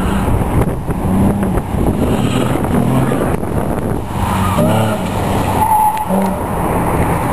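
Sports car engine being driven hard through an autocross course, its pitch climbing and dropping as it accelerates and lifts off. There is a quick up-and-down run of revs about two thirds of the way through.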